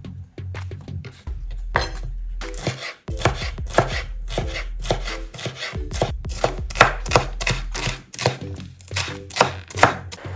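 Kitchen knife chopping a red bell pepper on a wooden cutting board, each cut a crisp knock of the blade through the pepper onto the wood. A few scattered cuts at first, then a steady run of about three cuts a second from about three seconds in.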